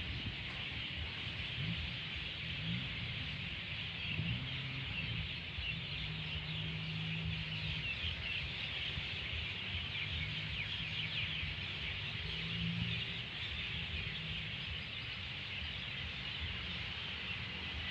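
Steady high-pitched chorus of night insects trilling, with low tones coming and going underneath.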